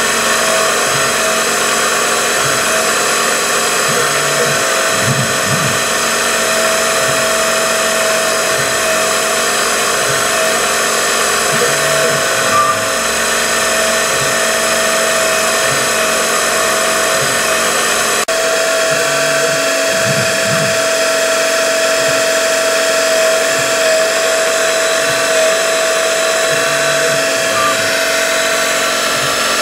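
Syil X3 CNC mill drilling small holes in an aluminium bar: the spindle and drive give a steady high whine. A soft low pulse comes about once a second.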